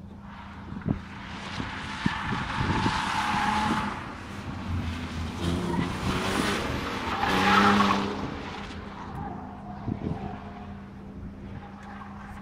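BMW E46 330Ci's straight-six engine revving hard as the car is driven through the corners, with its tyres squealing. It swells up twice, loudest about three seconds and again about eight seconds in, then fades as the car moves away.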